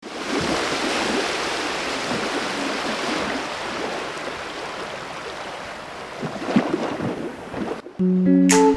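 Ocean surf washing onto a sandy beach, a steady rushing wash with a few swells. Near the end it gives way to guitar music with plucked notes.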